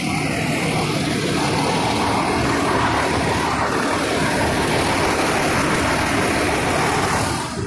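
Fire engine running close by: a loud, steady rushing noise that stops abruptly near the end.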